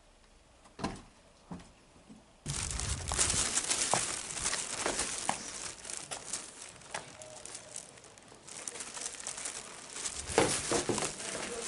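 Crackling, rustling noise that starts abruptly about two and a half seconds in, after a few faint clicks, and carries on with scattered sharper crackles.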